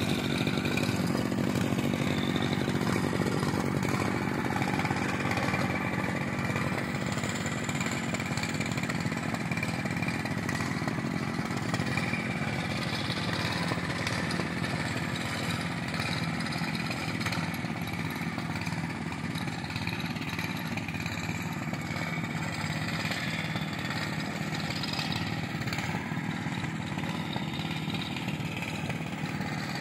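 Small engines of a brush cutter and a mini tiller running together at a steady warm-up idle, the brush cutter with a little throttle set.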